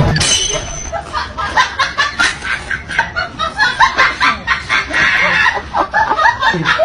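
A rapid string of short, cackling vocal sounds, about three a second.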